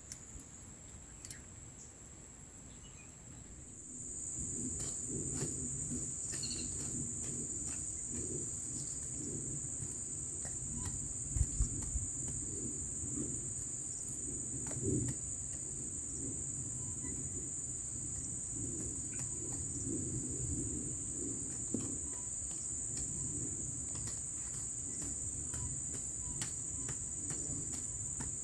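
Insects buzzing in a steady, high-pitched chorus that becomes louder about four seconds in and then holds steady, with faint low rustling and a few small clicks underneath.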